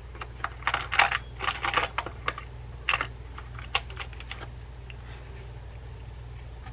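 Small metal screws and reel parts clicking and rattling in a plastic parts container as a hand sorts through it: a quick run of light clicks over the first three seconds, one more a second later, then quiet but for a steady low hum.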